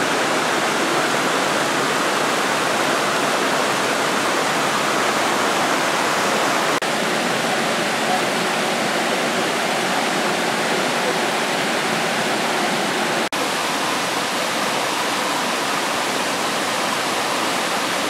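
Creek water rushing steadily over rock slabs and small cascades, cutting out for an instant twice.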